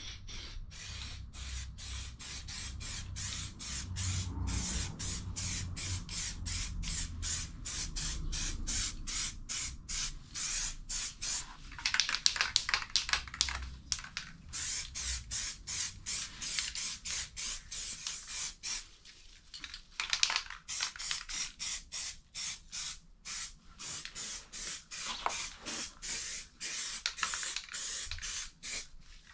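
Aerosol spray-paint can hissing in quick short bursts, a few a second, with a longer spray about twelve seconds in.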